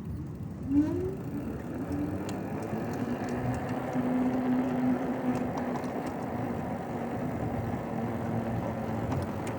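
Knobby tires humming on pavement as a trike rolls along. A steady hum rises in pitch about a second in, then holds. The rider links the tire noise to tire pressure.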